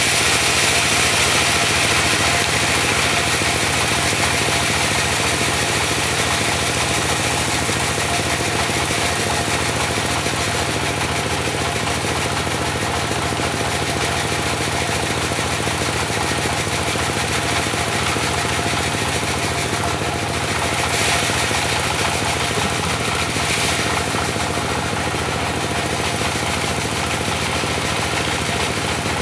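Diesel engine driving a portable band sawmill, running steadily with a fast even beat and a bright hiss over it.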